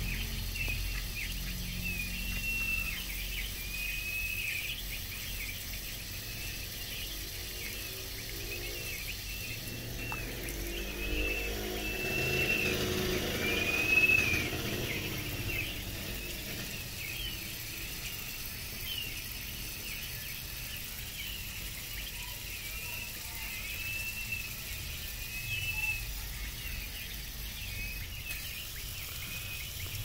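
Crested wood partridges (roul-roul) giving repeated short, soft whistles, each rising then falling in pitch, over the steady hiss of water spraying onto the aviary floor.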